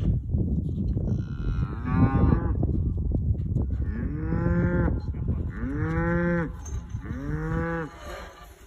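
Cattle mooing: four calls, each rising and then falling in pitch, a fainter one about two seconds in and three louder ones in quick succession in the second half, over a low steady rumble.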